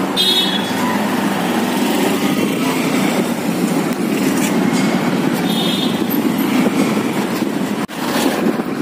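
Steady engine and wind noise of a motorbike riding through city traffic. Two short high-pitched tones come about a second and about five seconds in.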